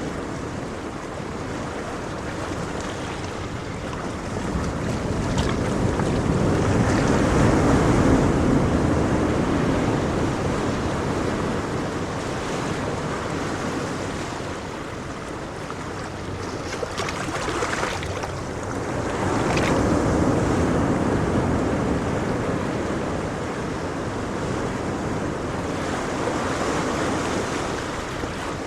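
Ocean waves washing in and out on a shore, the surf swelling and ebbing slowly, loudest about 8 and 20 seconds in. Some wind may be buffeting the microphone.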